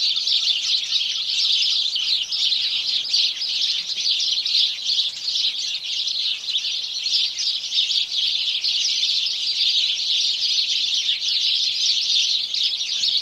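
A flock of house sparrows chirping together in a dense, continuous chorus of overlapping short chirps.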